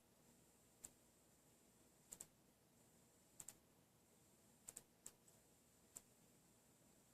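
Near silence broken by faint, sharp clicks, some in quick pairs, coming unevenly about once a second, over a faint steady high whine.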